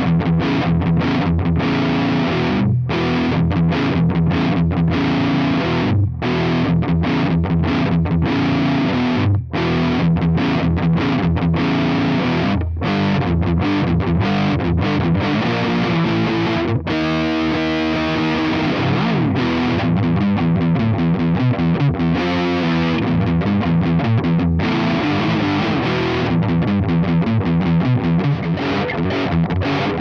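Ibanez RG8570 J-Custom electric guitar with DiMarzio pickups played through a Diezel VH4 amplifier at high-gain distortion into a miked Mesa Boogie 4x12 cabinet with Celestion Vintage 30 speakers: fast metal riffs and lead lines broken by short stops, turning to tight, choppy riffing in the second half.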